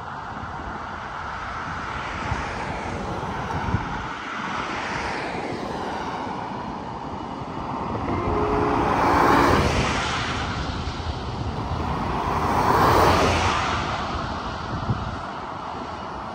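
Road traffic on a highway: a pickup truck and cars passing at speed, their tyre and engine noise swelling and fading twice, about nine and thirteen seconds in.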